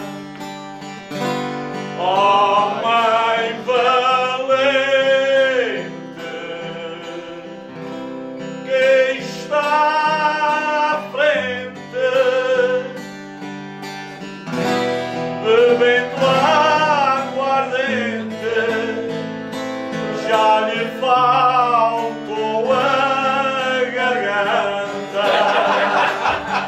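A man singing long phrases with strong vibrato, accompanied by a strummed and plucked acoustic guitar.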